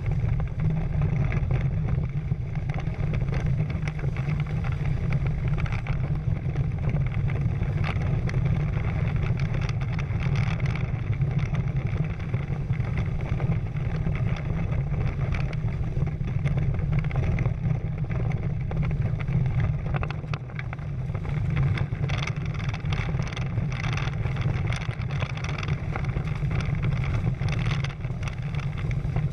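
Wind rumbling steadily on the microphone over the rush and splash of water along the hulls of a Prindle 16 catamaran sailing at speed, with choppier splashes in the second half.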